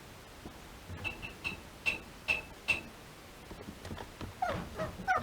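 Spitz puppies whimpering and whining, eager for their food: about a second in a run of six short high squeaks, then from about four seconds in short falling whines that grow louder near the end.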